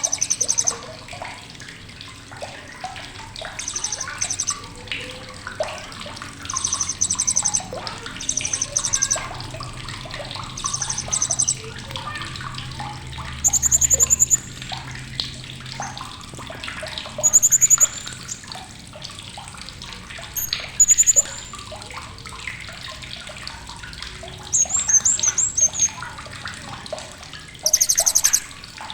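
Blue-crowned hanging parrot (srindit) giving sharp, very high, rapid trilled chirps in short bursts about every two to four seconds, over a constant background of small splashing and clicking noises.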